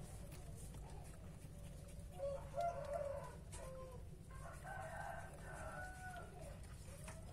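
An animal's drawn-out pitched call, heard twice: once about two seconds in and again, longer, from about four and a half seconds, over a steady low hum.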